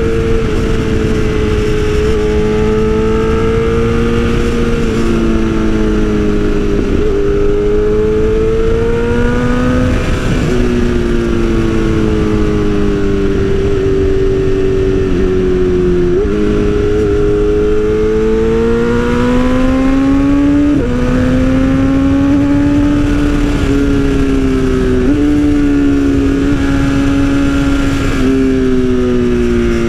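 BMW S1000RR inline-four superbike engine through an Austin Racing exhaust, pulling under load while riding. Its pitch climbs and falls as the bike speeds up and slows, with several sudden pitch jumps at gear changes.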